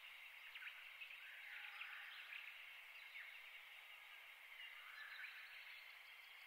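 Near silence: a faint steady background hiss with a few faint, short high chirps, most of them in the first half.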